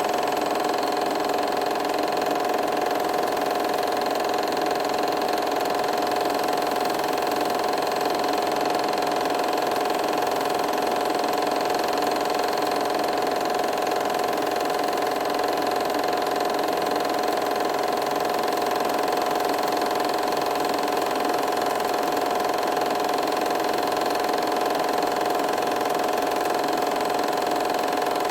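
A machine running steadily with an even hum that does not change.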